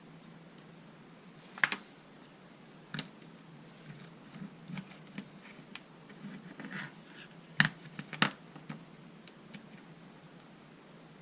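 Scattered clicks and light knocks of small plastic and metal parts being handled. The sharpest knocks come about two seconds in and twice more near eight seconds in, over a faint steady hum.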